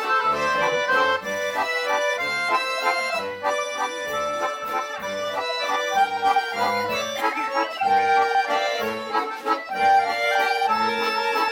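An accordion orchestra playing live: many accordions sounding sustained chords and melody together over a pulsing bass line.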